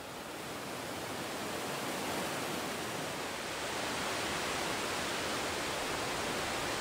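Steady rush of water pouring over the artificial Teufelsbrücke waterfall and its rocky cascade. The sound swells over the first couple of seconds, then holds steady.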